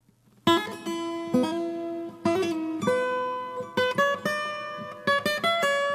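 Acoustic guitar music, plucked and strummed chords, starting about half a second in.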